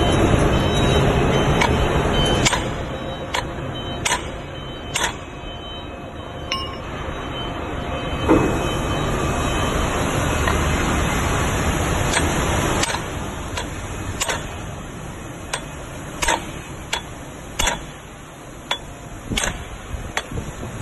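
Steady workshop machinery rumble, with sharp metal clinks and knocks as heavy steel parts are set and pressed together by hand. In the last couple of seconds come several hammer taps on steel.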